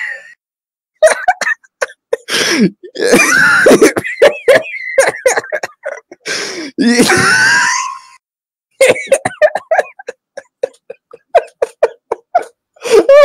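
A person laughing helplessly in fits: long breathy, wheezing bursts with short silent gaps, then a quick run of short 'ha-ha' pulses near the end.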